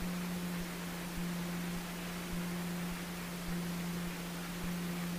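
Steady cockpit noise of a Cessna 150 taxiing: a constant low hum under an even hiss.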